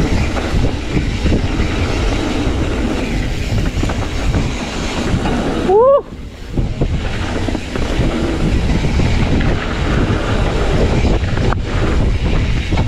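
Mountain bike descending a dirt flow trail: a continuous rumble of tyres rolling over the trail and wind buffeting the helmet or chest camera's microphone. A short rising tone sounds about six seconds in.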